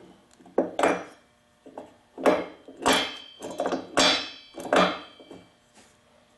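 A string of irregular metal knocks and clanks, about seven, several with a short metallic ring, as hand tools and parts of a small two-stroke blower engine are worked on; they stop a little before the end.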